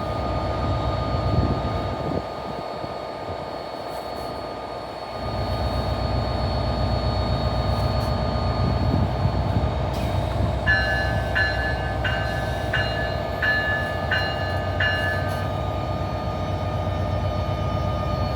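Train running through the station: a steady rumble with a constant electric whine, growing louder about five seconds in. In the middle a bell-like tone rings about seven times at an even pace.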